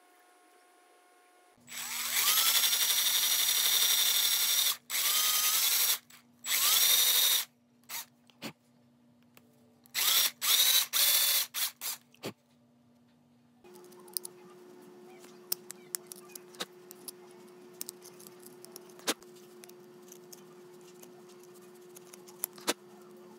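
Small power drill run in several trigger bursts, each spinning up with a rising whine, boring holes in a wooden crankbait body; near the middle it stops. After that come light clicks and scraping over a faint steady hum as a knife trims the wood around the eye hole.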